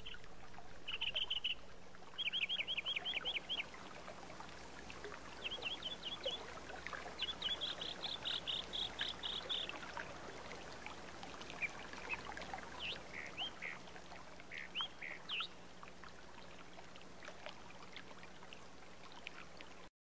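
Running stream water with songbirds calling over it. Several rapid trilled runs of notes come in the first half, then scattered single chirps.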